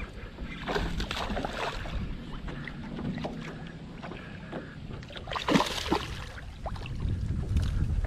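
A hooked largemouth bass being reeled in beside a small aluminium boat, with water splashing and lapping in irregular bursts and one louder splash a little past halfway. Wind rumbles on the microphone underneath.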